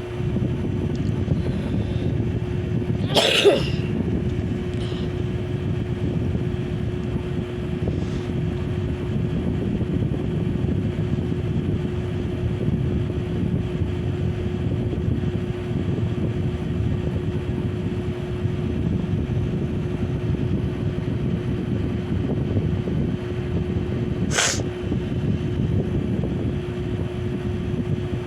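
Small ceiling fan running: a steady whooshing rumble with a constant low motor hum. A sudden short burst about three seconds in, and a brief sharp sound near the end.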